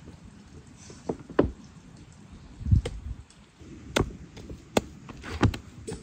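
Irregular knocks and dull thumps, about seven in all, the loudest a low thud a little before halfway, from hands kneading potato dough in a plastic bowl on a wooden table.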